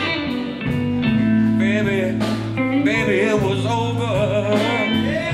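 Live blues band playing a slow soul-blues ballad: electric guitar, bass and drums, with a wavering, bending lead line over them.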